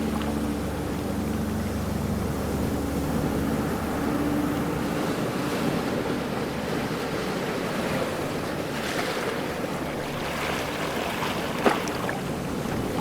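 Ocean waves washing in and out on a shore, a steady rushing surf with gentle swells. A faint low steady hum sits under it for the first few seconds, and there is a single sharp click near the end.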